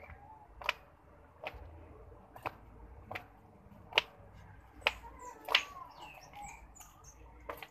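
Footsteps climbing concrete stairs: sharp slaps at an uneven pace of roughly one a second. Chickens cluck faintly in the background, mostly in the second half.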